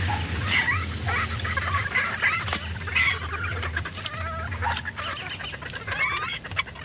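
A flock of laying hens clucking and calling throughout, a string of short overlapping clucks. Scattered sharp scrapes and crunches come from a garden fork turning the compost the hens are scratching in.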